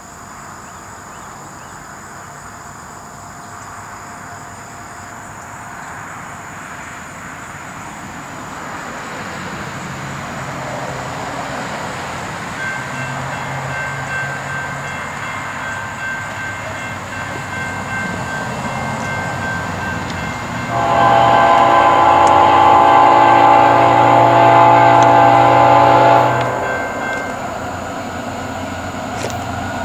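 Approaching freight train: the diesel locomotive's rumble builds steadily, and its air horn sounds, faint at first about halfway in. The horn then blows a loud, long blast about two-thirds of the way through and stops.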